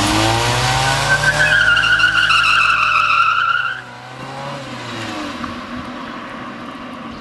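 Honda Civic pulling away hard with its tyres squealing and its engine revving up. The squeal and the loud engine cut off abruptly about four seconds in, leaving a much quieter engine sound.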